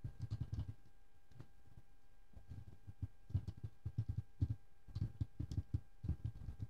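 Computer keyboard typing: irregular runs of soft, muffled key thumps with short pauses between them, over a faint steady electrical hum.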